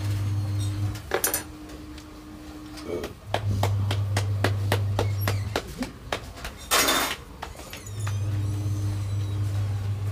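Hands patting out a maize-flour roti (makki di roti) between the palms: a quick run of slaps, about five a second, about three seconds in. A low steady hum switches on and off in spells of two to three seconds, and a short hiss-like burst comes about seven seconds in.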